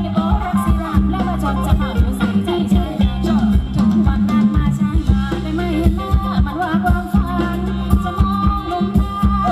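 Live Thai ramwong dance music played by a band through a loudspeaker system: a singer over a steady drum beat, heavy bass and rattling percussion.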